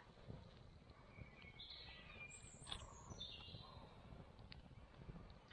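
Near silence with faint wild bird calls: a few thin, high chirps and a short falling whistle in the middle.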